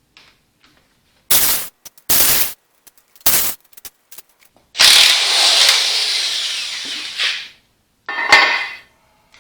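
A power tool run in three short bursts, then held for about three seconds, then one more short burst near the end. It is working the pins out of the tractor's 2-point hitch lift cylinders.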